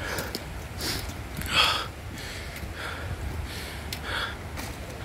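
A person breathing hard while walking, several breaths in a row, over a low steady rumble.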